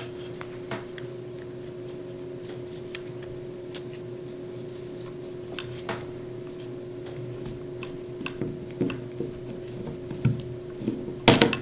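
Faint, scattered metallic clicks and ticks as the Browning Buck Mark .22 pistol's slide is worked off its frame by hand, with a quick louder cluster of clicks near the end.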